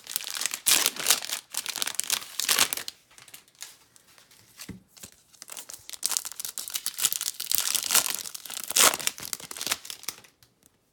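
Foil wrapper of a Topps Chrome baseball card pack crinkling and being torn open by hand, in two spells of a few seconds with a quieter lull between them.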